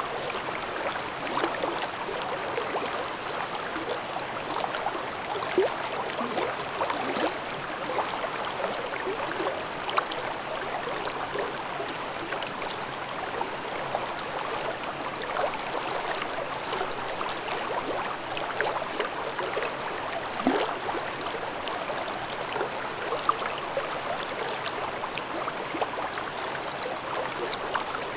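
Shallow mountain stream babbling over rocks in a gorge: a steady rush of water with many small irregular splashes and gurgles.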